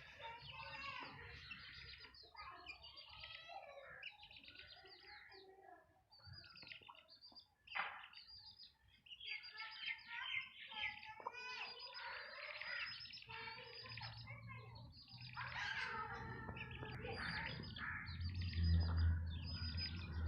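Chicks peeping, many short overlapping chirps without a break, with a hen among them.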